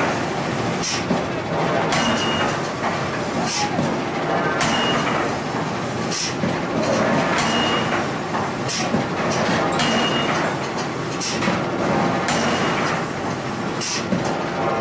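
Steady rumbling machinery noise in a forge yard, with irregular heavy clanks about every one to two seconds, some leaving a short high metallic ring.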